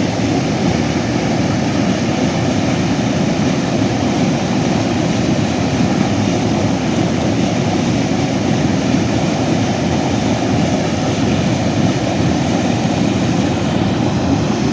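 An engine running steadily at a constant speed, a dense even drone with no changes in pitch.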